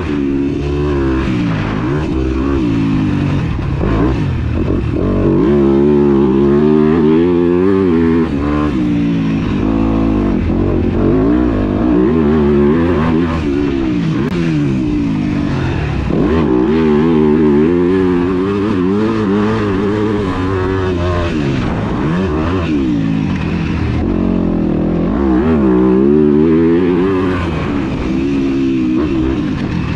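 2021 Yamaha YZ250F's 250cc four-stroke single-cylinder engine with an FMF exhaust, under hard riding. The engine note climbs and drops in pitch again and again as the throttle is opened and closed and the gears are shifted.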